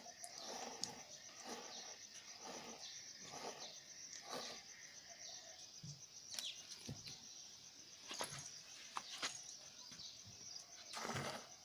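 Goat being milked by hand: rhythmic squirts of milk hissing into a small steel pot, one per squeeze, with a steady high insect trill behind.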